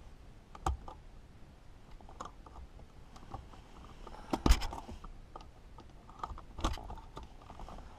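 A small flathead screwdriver and fingers prying at the plastic housing and clips of a 1984 Mercedes 300SD's climate control unit, giving scattered small clicks, scrapes and crackles, with a sharper click about four and a half seconds in.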